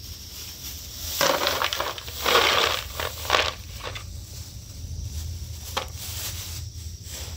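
Hard lumps of dried kashk (dried yogurt) tumbling out of a plastic bag into a plastic bowl: a rattling clatter with the bag rustling, loudest from about one to three and a half seconds in, then a few scattered clicks as the last pieces drop.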